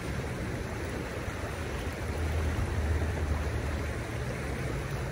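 Shallow river water rushing steadily over a rocky riffle, with a low rumble that swells from about two seconds in.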